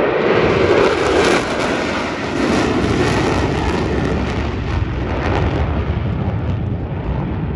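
Jet engines of four F-16 fighters flying past in formation: a loud, steady roar whose top end thins out as the jets draw away, near the end.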